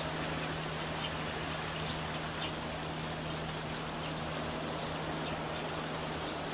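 Steady outdoor background hiss with a low steady hum underneath and short, faint high chirps scattered irregularly through it.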